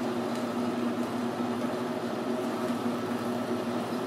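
Precision Matthews 12x36 metal lathe running with a steady hum while a parting blade cuts a deep groove in a spinning steel bar.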